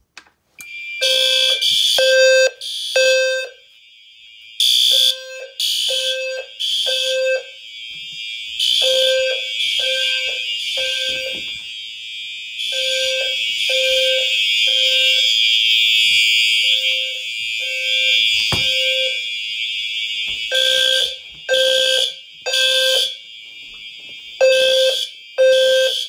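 Fire alarm system in alarm after a System Sensor 2151 smoke detector is tripped. A low-frequency sounder gives a low tone in groups of three pulses, the temporal-three evacuation pattern, over fire alarm horns sounding a higher-pitched tone, starting about a second in.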